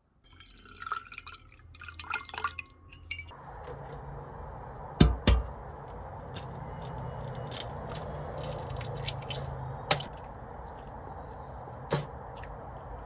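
Glass and tableware clinking, with small dripping and pouring liquid sounds, over a steady background hum; sharp clinks stand out about five seconds in, again near ten seconds, and once more around twelve.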